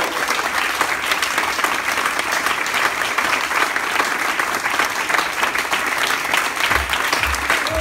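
Audience applauding steadily in a room after a tango dance, with low thumps starting underneath near the end.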